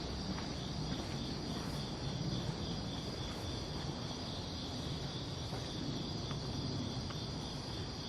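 Steady chorus of crickets and other night insects: a continuous high trill, with a second slightly lower band pulsing rapidly beneath it. Under it there is a low rumble and a few faint ticks.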